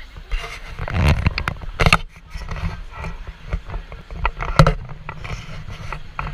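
Low rumble and rattling inside the upper deck of a Hong Kong double-decker tram, broken by repeated sharp knocks and bumps. The loudest knocks come about a second in, near two seconds and past four and a half seconds.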